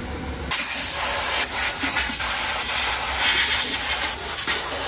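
After a brief engine hum, a compressed-air blow gun starts suddenly, about half a second in, and hisses loudly as it blasts dust out of a telehandler's radiator and cooler pack. The hiss wavers as the nozzle moves across the fins.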